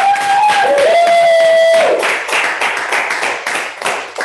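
Hands clapping in applause as the talk ends, dense and continuous, with a held high cheering note over the first two seconds that steps down slightly in pitch.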